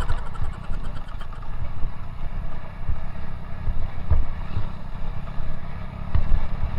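Honda Win two-stroke motorcycle riding over a rough dirt track: a loud, uneven low rumble of engine and wind on the microphone, with a couple of knocks as the bike jolts.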